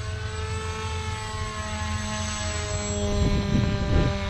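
Small RC foam wing's motor and propeller droning in flight, a steady pitched whine that rises slightly and then sinks gently in pitch past the middle. A low, uneven rumble joins in from about three seconds in.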